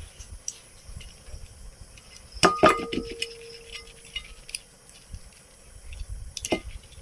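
Metal clinks and light knocks as ceiling fan parts and tools are handled during disassembly, with a louder double strike about two and a half seconds in that rings briefly, and another sharp knock near the end.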